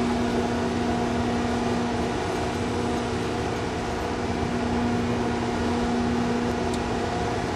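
Steady mechanical drone with a constant humming tone that does not change.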